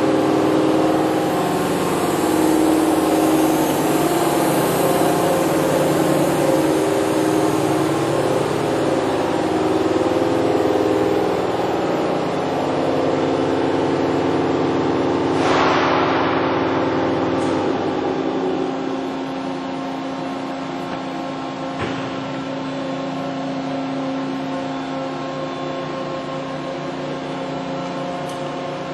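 Toshiba MPF-2114C bridge-type vertical machining center running with a steady mechanical hum made of several steady tones. About fifteen seconds in there is a brief rush of hiss that fades away. A sharp click follows a few seconds later, and the hum is a little quieter after that.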